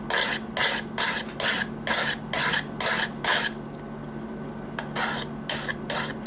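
A stainless steel knife blade being stroked back and forth across a wet diamond whetstone: quick scraping strokes, about three a second, with a pause of about a second past the middle. This is the sound of the edge being sharpened.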